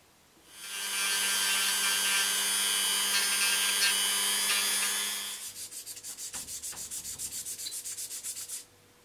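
A rotary tool with a small sanding drum grinds carbon fibre and epoxy resin: a steady whine with a rasping scrape for about five seconds. Then comes a fast pulsing scrape, about eight strokes a second, which stops suddenly near the end.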